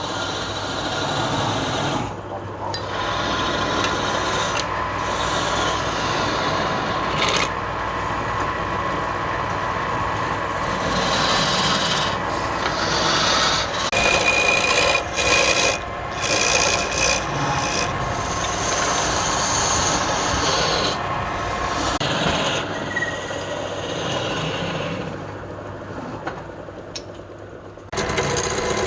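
Wood lathe running while a turning tool scrapes and cuts into the spinning wood: a rough scraping over a steady motor hum, breaking off and starting again several times.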